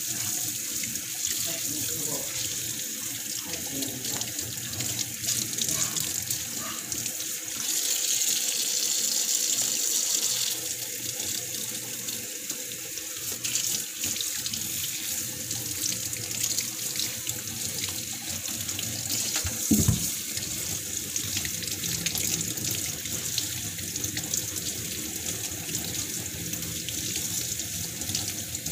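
Kitchen faucet running a steady stream of water into the sink, splashing over food held under it by hand. The flow is louder for about two seconds around eight seconds in, and there is a single thump about twenty seconds in.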